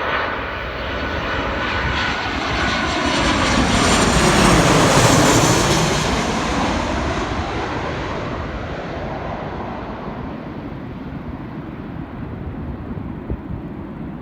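Airliner on landing approach passing low overhead. Its engine noise swells to a peak about five seconds in, the pitch sliding down as it passes, then fades slowly.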